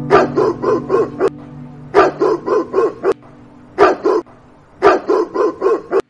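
A dog barking in quick runs of about five or six barks, four runs in all, over background music with held low notes.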